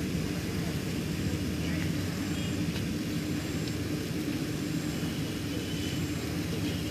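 A machine's steady low drone, a constant hum over an even hiss, with no change in level.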